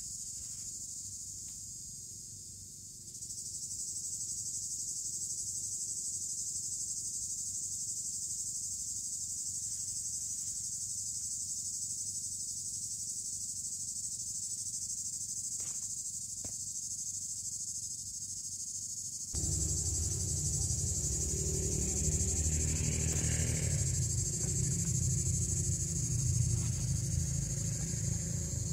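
A steady, high insect chorus chirring in summer garden vegetation. About two-thirds of the way through, a louder, low rustling close by joins it.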